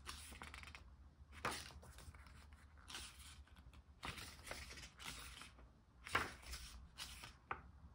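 Faint paper rustling from a K-pop album's photobook and packaging being handled and its pages turned, in a series of short swishes.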